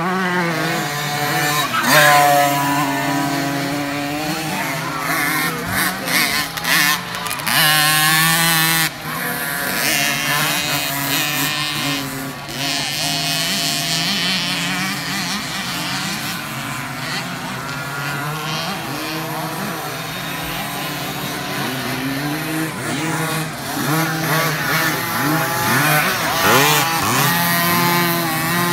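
Several 50cc two-stroke motocross bike engines revving hard at once, each one's pitch rising and falling as it accelerates and shifts, overlapping all through. The loudest revs come at about two seconds in and again near the end.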